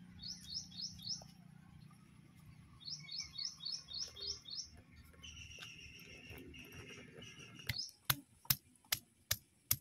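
A songbird chirping in two short runs of quick, falling chirps. From about eight seconds in, the stone pestle knocks sharply against a stone grinding slab, about three strikes a second, crushing ginger, garlic and dried chillies.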